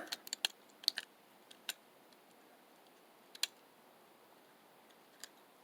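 Small, sharp clicks and taps of a phone's parts being handled as its back plate is fitted, several in quick succession in the first second, then a few single ones spaced out.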